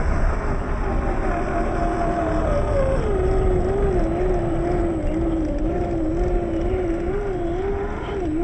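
A 1/10-scale RC rock crawler's 27-turn brushed electric motor and geartrain whine as it climbs a dirt slope. The pitch wavers up and down with the throttle and drops a little about three seconds in, over a low rumble.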